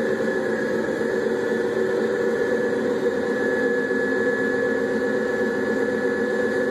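Dump truck's diesel engine running steadily at a constant speed, with a steady high whine over the rumble.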